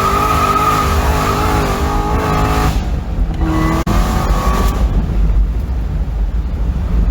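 Supercharged 6.2-litre V8 of a 2017 Chevrolet Corvette Z06 pulling hard under full throttle, with a loud high wavering whine over the engine note. About three seconds in the sound cuts abruptly to a duller low rumble with wind noise.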